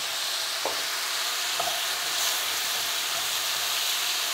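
Chicken, onion and pineapple pieces sizzling in a hot pan over a full flame, turned with a wooden spatula that knocks lightly against the pan a couple of times.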